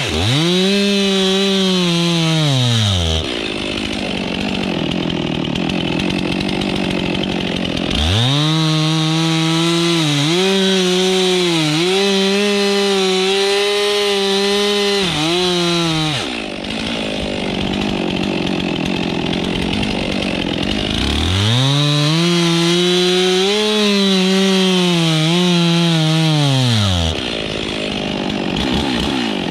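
Stihl MS 362 two-stroke chainsaw with a 45 cm bar cutting branches off a felled conifer: three spells at full throttle, the pitch sagging and bending as the chain bites into the wood, with the engine dropping to idle between them and revving up again at the very end.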